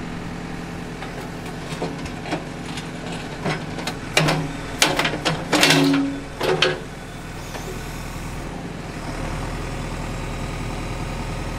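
JCB 3CX Eco backhoe loader's diesel engine running steadily, with a series of metallic clanks and knocks in the middle as the rear backhoe bucket is changed for a smaller one.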